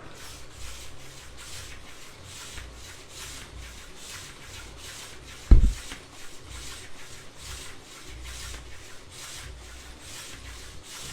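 Small 3D-printed single-acting air engine running slowly on air from a hand balloon pump: a rhythmic puffing hiss of air, about three puffs a second. A single low thump about halfway through.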